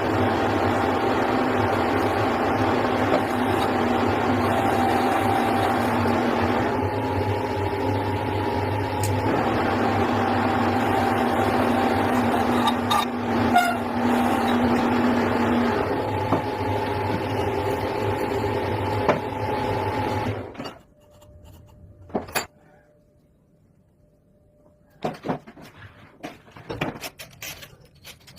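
An electric machine tool running steadily with a constant hum and whine, which switches off abruptly about two-thirds of the way through. It is followed by a few scattered metal taps and scrapes.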